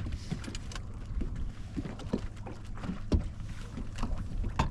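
Freshly landed kokanee salmon flopping in the boat, giving a run of irregular knocks and thumps, some loud, over a steady low hum.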